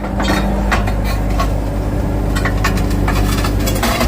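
Bobcat skid-steer loader's engine running steadily under load, with irregular clattering and scraping of broken concrete and field stones as the bucket tears up an old foundation.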